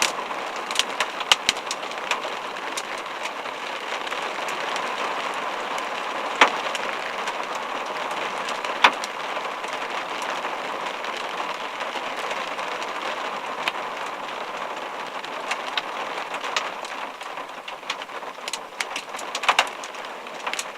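Hail and rain falling steadily on a vehicle, with scattered sharp knocks of individual hailstones. The loudest knocks come about six and nine seconds in.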